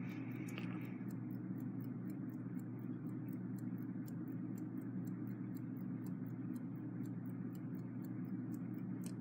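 Westclox Big Ben Chime Alarm clock movement ticking as its balance wheel and escapement run, an even train of about five ticks a second over a steady low hum. The balance motion is weak, which the repairer takes for a possible beat problem with the hairspring.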